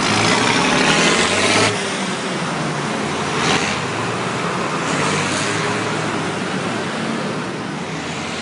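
A tractor's diesel engine running loudly as it drives past close by, fading abruptly after under two seconds. A car then passes with a brief swell of noise, and another tractor is heard approaching.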